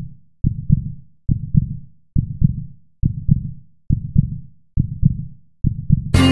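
Heartbeat sound effect: slow, low double thumps (lub-dub) about seventy times a minute. Just before the end the blues band's music comes in.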